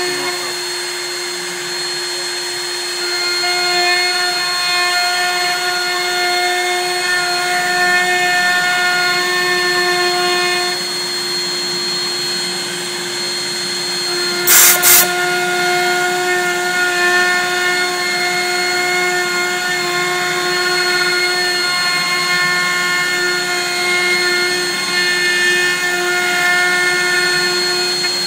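Benchtop CNC router's spindle running with a steady high whine while milling black locust wood, the mix of tones shifting every few seconds as the cut changes. Two short, sharp, loud cracks come about halfway through.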